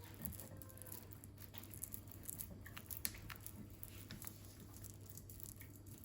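Faint clicks, taps and soft crinkles of a bottle being pressed and rolled over a rubber repair patch on a bicycle inner tube to bed it down, over a low steady hum.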